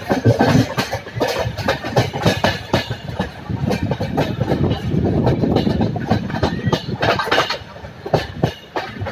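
Passenger train running, heard from on board: a steady rumble with the wheels clattering irregularly over rail joints.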